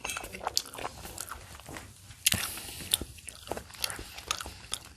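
Close-up chewing of a bite of pizza: crunchy popcorn chicken and crust, with wet mouth sounds and irregular sharp crunches.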